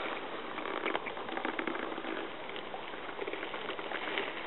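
River water pattering and fizzing against a canoe's hull as it drifts: a steady hiss dotted with many small ticks.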